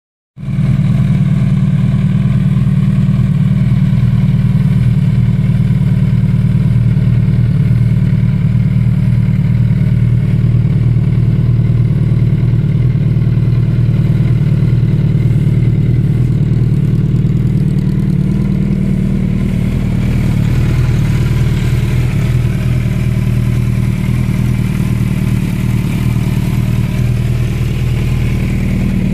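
Suzuki Hayabusa GSX1300R inline-four engine idling steadily, with its sound coming through a Hurricane HF1 aftermarket slip-on muffler fitted on one side only. The sound starts about half a second in.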